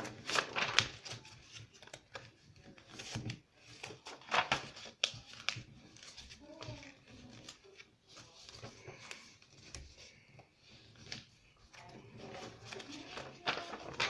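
Paper being handled and folded by hand: irregular rustles and crinkles of the sheet.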